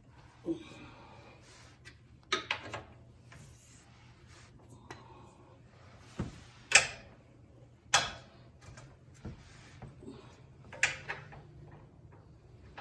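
A string of separate sharp metallic knocks and clanks from tool work on the skid plate mounting bolts, loudest twice in the middle, with quiet stretches between.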